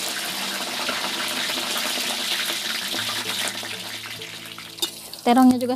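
Eggplant pieces deep-frying in hot oil in a wok, with a steady sizzle that dies down over the last couple of seconds.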